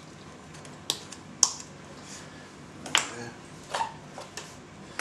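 Wire whisk and spoon clicking and tapping against a metal saucepan while thick, custard-like wax and olive oil cream is mixed: about five separate sharp taps, the loudest about a second and a half in.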